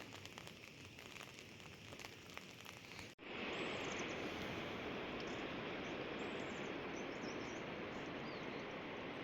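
Rain outdoors: for about three seconds, scattered drops tick over a soft patter. After a sudden cut, it becomes a louder, steady rain hiss with a few faint high chirps.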